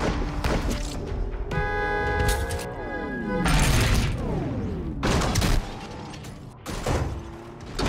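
Action-film chase soundtrack: score music mixed with bursts of gunfire and heavy impacts. A held chord of several tones slides partly downward in pitch, then about three and a half seconds in comes a loud crash as a car is flipped into the air.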